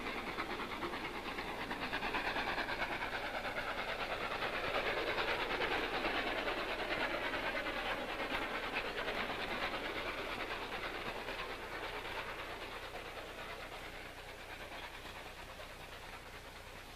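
Train rolling along the rails, growing to its loudest about five seconds in and then slowly fading away.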